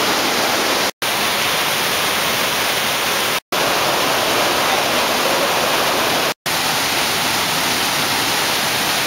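Waterfall rushing in a loud, steady hiss of falling water, broken three times by a sudden split-second silence where the recording cuts.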